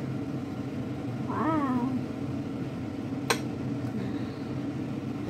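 A metal ladle serving soup into a ceramic bowl, with one sharp clink of ladle on bowl about three seconds in. About a second in there is a short wavering meow-like call, over a steady low hum.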